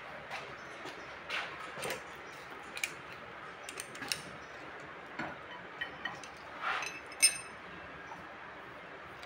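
Scattered light metallic clicks and clinks of a wrench and screwdriver on the rocker-arm adjusting screw and locknut of a Kubota V1505 diesel's exposed valve train, while the valve clearance is set. One sharper ringing clink comes about seven seconds in.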